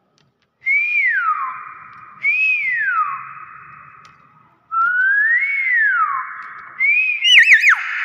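Common hill myna whistling: four loud whistled calls, each sliding up and then down in pitch, the last one breaking into a quick warble near the end.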